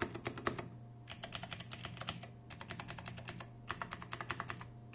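Typing on a tenkeyless mechanical keyboard with clicky blue switches and thick PBT OEM-profile keycaps: quick runs of sharp key clicks with short pauses between them.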